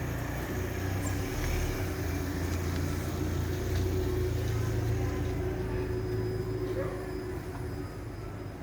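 Downtown street traffic, dominated by a nearby vehicle engine's steady low hum, which eases off about two-thirds of the way through.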